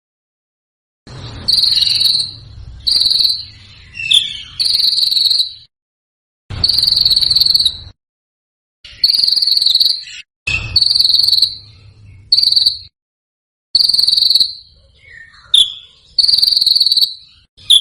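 Cricket chirping: a high, steady trill in bursts of half a second to a second and a half, separated by abrupt gaps of silence. A low rumble runs under some bursts.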